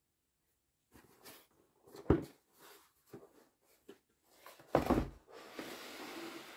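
Cardboard box handled and its lid opened by hands in cotton gloves: scattered scrapes and light taps, a sharp knock about two seconds in and a heavier thump just before five seconds, then a steady brushing rustle of cardboard near the end.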